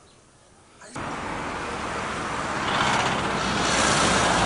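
Road traffic noise that cuts in suddenly about a second in after near silence, then swells as a car drives past close by.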